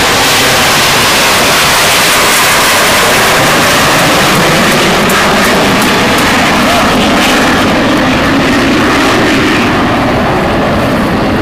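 Boeing 787 Dreamliner's twin Rolls-Royce Trent 1000 turbofan engines at takeoff power as the airliner climbs out overhead: loud, steady jet noise, its high end thinning near the end as the plane moves away.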